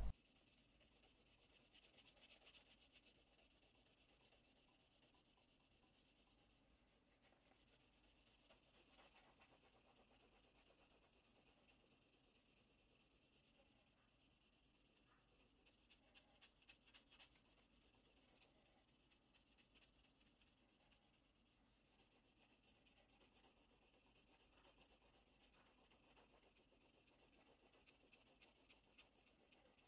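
Faint rubbing of graphite over paper, as the back of a line-drawing print is shaded over to make a graphite transfer sheet. It comes in a few short spells of a second or so, with near silence between them.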